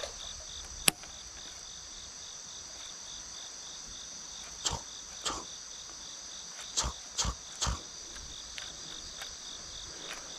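Steady chirring of an insect chorus, high-pitched, with one voice pulsing several times a second. A sharp click about a second in, then a handful of short knocks between about four and a half and eight seconds in.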